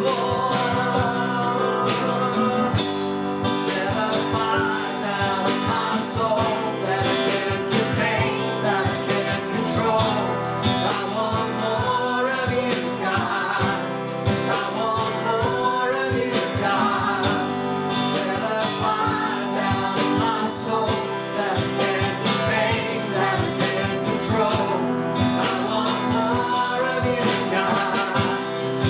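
Worship song: strummed acoustic guitar with a singing voice carrying the melody.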